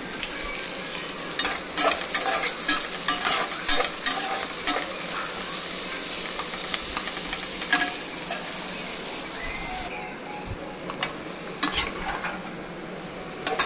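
Chopped onions sizzling in oil in a nonstick frying pan, stirred with a metal spatula that scrapes and knocks against the pan in a quick run of clicks during the first few seconds. About two-thirds through, with marinated chicken pieces now in the pan, the sizzle turns quieter, and a few more spatula knocks come near the end.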